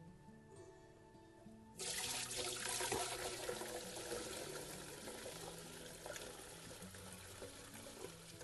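Bone broth being poured from a large stainless steel stockpot into a strainer over a pan: the pour starts suddenly about two seconds in as a rushing splash, then thins out gradually. Quiet background music with held notes plays throughout.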